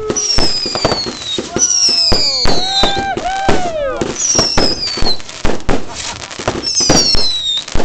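Fireworks display: a rapid barrage of bangs and crackling, with whistling fireworks whose shrill whistles fall in pitch again and again, and a few whistles in the middle that rise and then fall.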